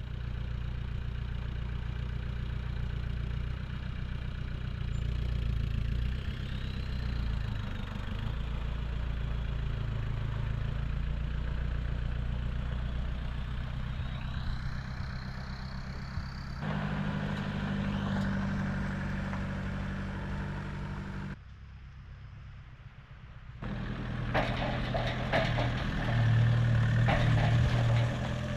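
A vehicle engine idling steadily, in several clips that cut in and out abruptly, with a few faint bird whistles above it.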